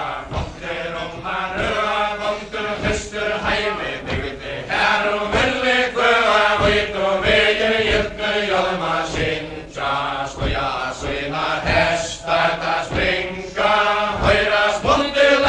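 A group of voices chanting a Faroese ballad in unison, in long sung lines with a steady beat underneath, as for the Faroese chain dance.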